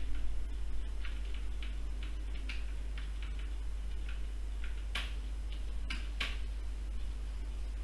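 A low steady hum with scattered faint, irregular ticks and clicks, three of them sharper, about five, six and six and a quarter seconds in.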